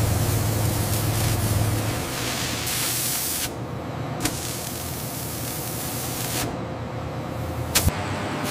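Steady hiss of a cutting head working sheet metal and spraying sparks, with a low hum under it for the first two seconds. The hiss drops away twice, about three and a half and six and a half seconds in, and each gap ends with a sharp click.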